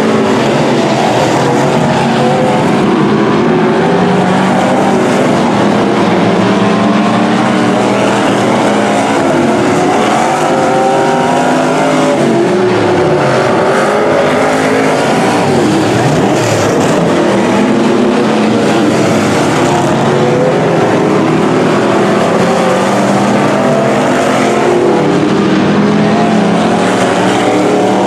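A pack of Pro Stock dirt-track race cars running at racing speed, several engines at once, their pitch rising and falling as the cars lift and accelerate. Swooping pitch changes come as cars pass close by, most noticeably around the middle.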